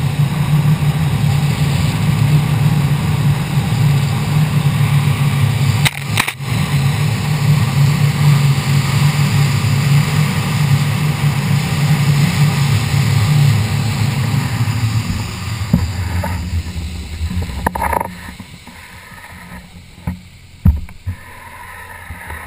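Ski boat's engine running at towing speed with water and wind rushing past, a loud steady drone. About 15 seconds in the engine note fades, and at about 18 seconds the noise drops off sharply as the boat slows, leaving a quieter background with a few knocks.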